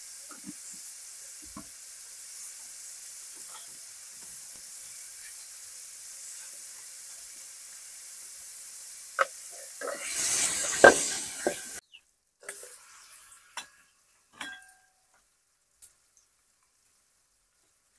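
Food sizzling as it fries in a pan: a steady hiss that flares up louder about ten seconds in, then stops abruptly. A few scattered clicks and knocks follow.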